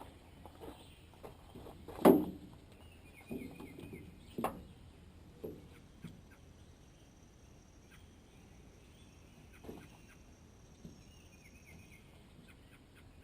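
A few irregular knocks and clunks from building work, the loudest about two seconds in and another a couple of seconds later, then fewer. Short, faint bird trills come now and then.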